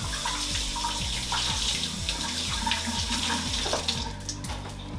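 Kitchen tap running water into a sink, shutting off about four seconds in.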